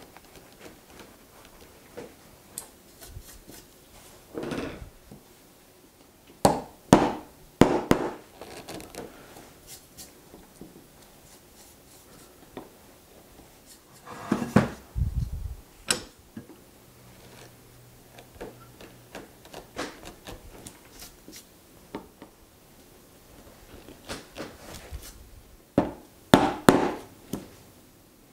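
Bench chisel paring end grain and corners of a Douglas fir beam by hand: scattered scraping cuts and small clicks, with clusters of sharper knocks. Near the end come a few hard strikes of a wooden mallet on the chisel as it chops into the wood.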